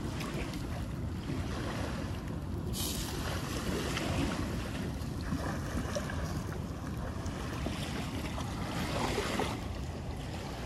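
Steady rush of wind and water with wind buffeting the microphone; the hiss turns brighter about a quarter of the way in and eases near the end.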